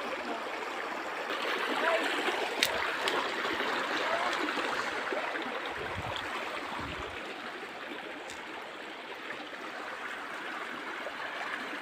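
Water of a stream running steadily, a continuous even rush with a few faint ticks.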